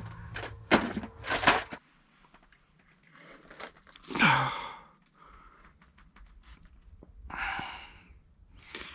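Handling noise as a lake trout and a tape measure are laid out on snowy ice: two sharp knocks in the first two seconds, then soft scrapes and crunches. A falling sigh about four seconds in and a short breath about seven and a half seconds in.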